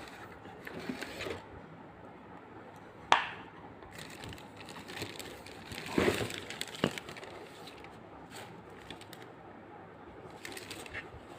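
Handling of a Prestige kettle: a sharp click about three seconds in, then a clatter of knocks around six to seven seconds, with light rustling between.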